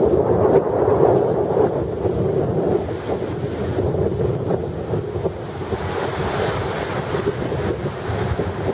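Small surf washing onto a sandy beach, with wind buffeting the microphone.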